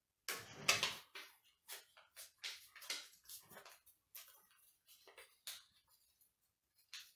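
Paper rustling and crinkling as a small folded slip of paper is handled and unfolded, in quiet, irregular crackles that are loudest in the first second.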